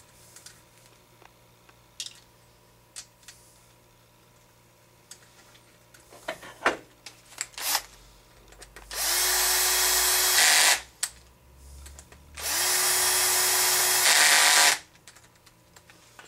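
Cordless drill-driver running twice at a steady speed, about two seconds each time, driving in two screws that fasten the transmission plate to the clutch carrier. A few sharp clicks of handling come just before the first run.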